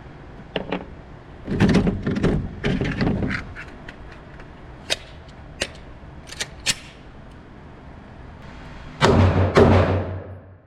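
Gunshots at a shooting range, each followed by a short echo: a quick run of several shots, then scattered single cracks, and the two loudest shots near the end.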